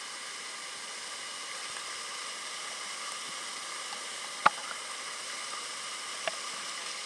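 Water-park waterfall pouring down and splashing onto the water right at the camera, a steady hiss, with a sharp tap about four and a half seconds in and a smaller one near the end.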